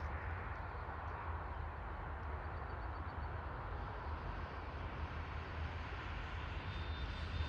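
Wind blowing across the microphone: a steady rushing noise with a low rumble underneath.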